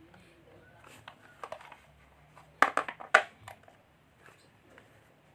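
Parcel packaging being opened by hand: a few light crackles, then a loud cluster of sharp crackles about two and a half to three seconds in.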